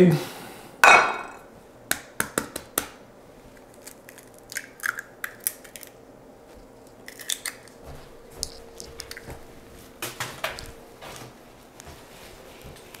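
A hen's egg being cracked and its shell handled over a bowl: scattered light clicks, taps and small crunches, with a short rustle about a second in.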